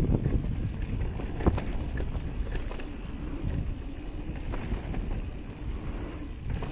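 Scott Ransom mountain bike rolling fast over a dirt forest trail: a steady rumble of tyres and wind noise, with sharp knocks and rattles from the bike over bumps, the loudest about a second and a half in.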